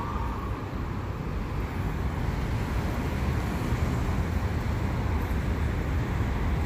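Steady street traffic noise with a heavy low rumble of vehicles.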